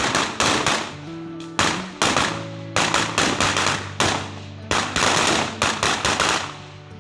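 Firecrackers going off in a rapid, irregular string of loud bangs, roughly two a second, over background music.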